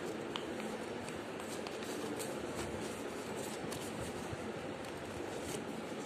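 Paper being handled and folded by hand for origami: scattered soft crinkles and rustles over a steady low background rush.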